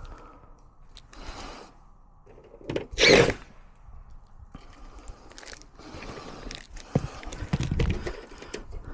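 Work-handling noises from fitting micro-mesh gutter guards: irregular scrapes, rustles and clicks, with one loud scrape about three seconds in.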